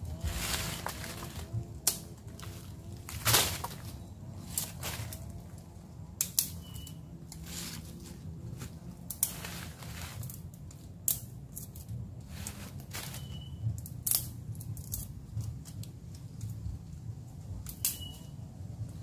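Dry sticks snapping as they are broken by hand, sharp cracks every second or two at uneven intervals, with crunching of dry leaf litter underfoot.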